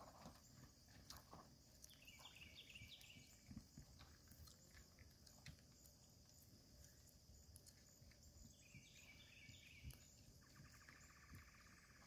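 Faint hoofbeats of a horse pulling a cart over grass, with two brief bursts of high chirping and a fine buzzing trill near the end.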